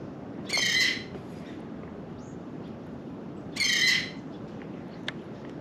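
Osprey calling twice, each a half-second burst of high whistled chirps, about three seconds apart, over a steady low background hiss.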